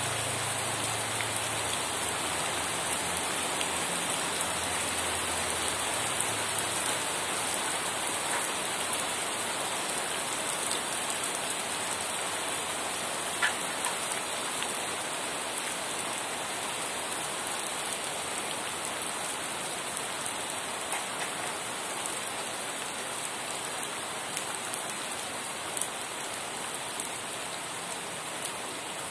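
Steady rain falling, an even dense hiss with a few scattered louder drop taps.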